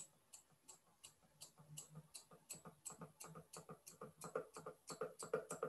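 Hairdressing scissors snipping hair with their points, a run of faint, regular clicks at about three a second that quicken near the end, as the outline of a bob is point-cut.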